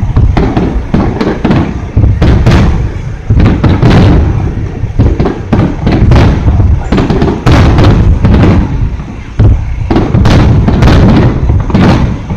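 Aerial firework shells bursting in a rapid, continuous barrage: loud, overlapping booms several times a second with rumbling echo between them.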